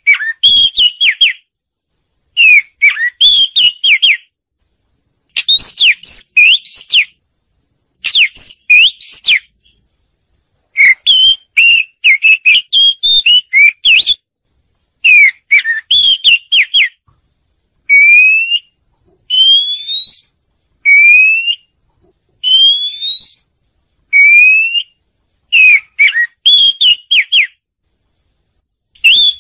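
Oriental magpie-robin song: a series of short, varied whistled phrases with quick up-and-down slides, one about every two to three seconds. Midway through, the phrases give way to a run of simple rising whistles before the varied phrases return.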